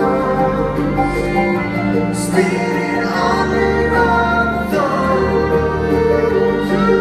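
Live acoustic string-band music from a concert: sustained notes over a steady bass, with a voice singing long held notes.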